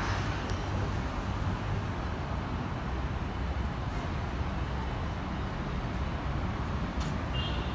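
Steady low rumble of outdoor urban background noise, like road traffic, with a few faint clicks and a short high-pitched tone near the end.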